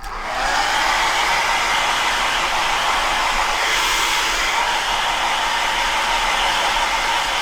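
Hair dryer running steadily, blowing on a freshly bathed kitten's wet fur; it switches on at the start and runs on without pause.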